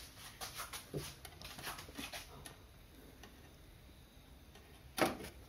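Small clicks and rustles of a hand working in the engine bay, then one sharp click about five seconds in as the oil dipstick is drawn out of its tube to check the oil level.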